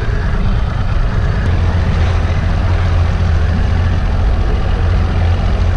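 Fishing boat's engine running steadily, a low hum under a continuous rushing hiss.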